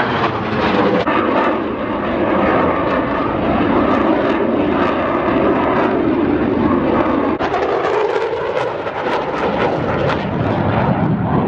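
Military fighter jet's engines running loud as it flies overhead, a dense steady noise whose pitch falls in the first second as it passes.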